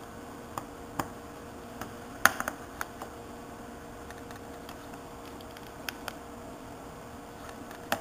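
Scattered small clicks and taps from the parts of an opened iPod being handled, over a steady background hiss. There is a short cluster of sharper clicks a little over two seconds in.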